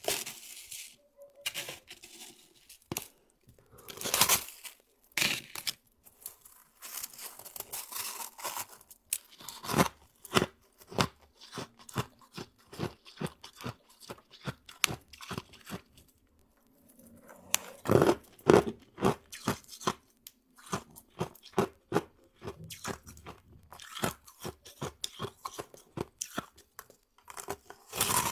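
Close-up crunching and chewing of soft, powdery freezer frost, bite after bite in quick crunches. The crunching pauses for a couple of seconds about halfway through, then resumes with louder bites.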